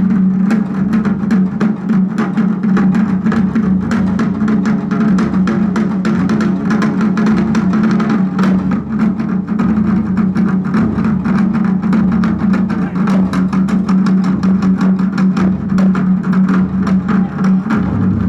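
Music with drums and rapid percussive strikes over a steady low drone.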